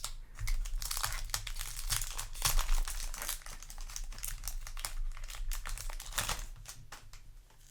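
Foil wrapper of a Yu-Gi-Oh! booster pack being torn open and crinkled in the hands. It makes a dense crackling that is loudest about two and a half seconds in and dies away near the end.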